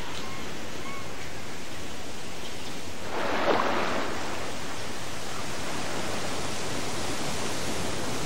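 Steady rushing hiss of water, swelling briefly about three seconds in like a wave washing on the shore. A faint short bird chirp about a second in.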